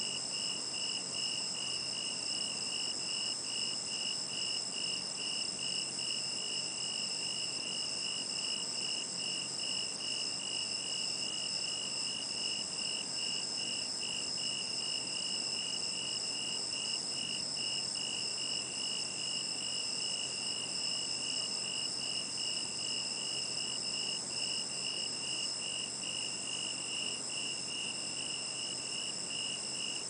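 A night chorus of autumn insects singing: one chirps in an even pulse about two or three times a second, while others trill continuously at a higher pitch.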